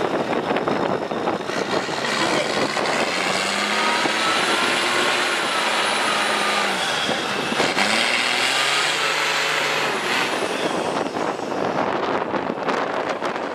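Off-road 4x4 vehicle's engine revving hard, its pitch rising and falling several times over a loud, steady rush of noise.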